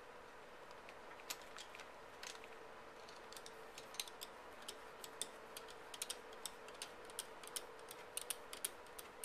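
Light metal-on-metal clicks and ticks as a screwdriver turns and seats the gas cylinder plug in an M1 Garand's gas cylinder. The clicks are scattered at first and come several a second from about three seconds in.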